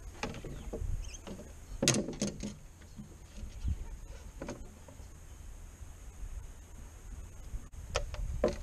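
Irregular knocks, clicks and scuffs of a landed fish being handled on a fiberglass boat's bow deck, the loudest cluster about two seconds in, over a low steady rumble.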